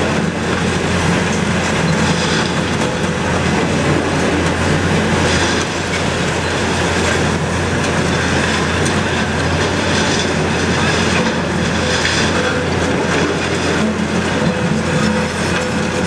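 Mercedes-Benz Arocs truck's Meiller hooklift pulling a loaded steel roll-off container up onto its bed: steel rollers and container runners rumbling and squealing along the frame rails over the steady hum of the running engine and hydraulics.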